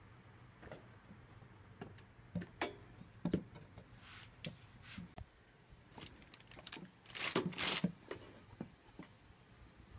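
Goat kid moving about: scattered light taps and knocks of its hooves and body, with a louder scraping rustle about seven seconds in.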